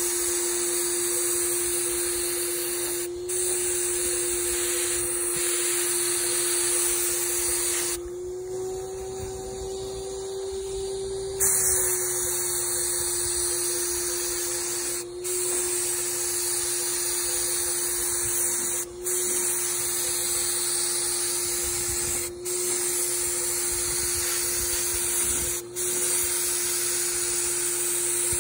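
Graco HVLP paint sprayer: the turbine's steady whine under the hiss of air and paint from the spray gun, broken by short gaps as the trigger is let off between passes. For about three seconds near the middle the hiss stops and the whine rises slightly in pitch.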